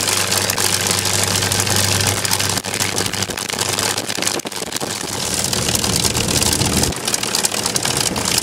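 A warbird's V-12 piston aero engine running steadily, a dense engine noise with a constant low drone underneath.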